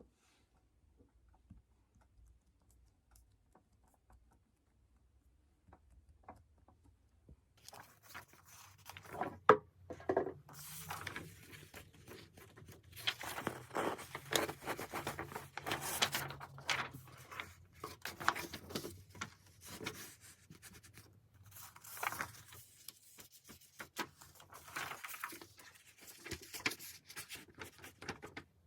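Product packaging opened by hand: plastic wrap and cardboard tearing, rustling and scraping, with scattered sharp clicks, starting after about seven seconds of near quiet.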